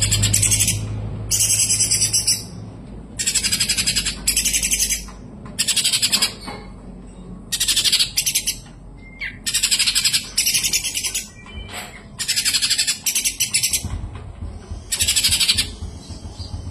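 Kapas tembak singing: about nine loud, high, fast-chattering phrases, each about a second long, with short pauses between them. A faint low rumble sits under the song at the start and again near the end.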